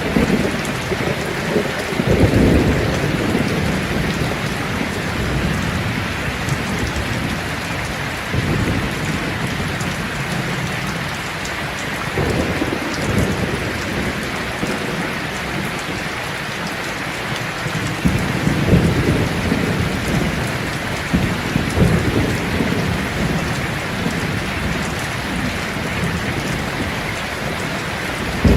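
Steady rain falling hard, with low rumbles of thunder rolling in several times: about two seconds in, around the middle, and twice more in the later part.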